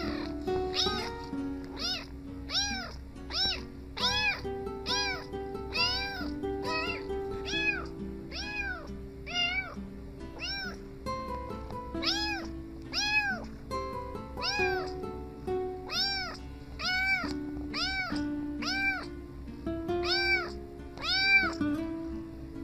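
A cat meowing over and over in a steady rhythm, about three meows every two seconds, each meow rising and falling in pitch, with a short break about halfway through. Background music plays underneath.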